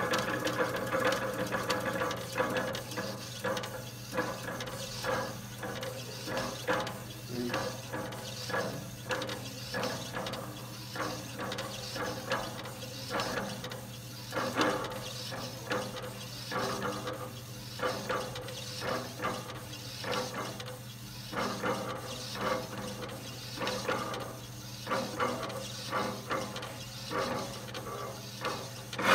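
Coffee printer's inkjet print-head carriage shuttling back and forth as it prints onto a coffee's foam, its motor whirring in short repeated passes over a steady low hum.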